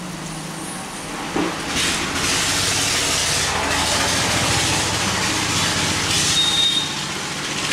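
Semolina being stirred with a wooden spatula into boiling water in a kadai: steady bubbling and hissing with the spatula working against the pan. It gets louder about two seconds in.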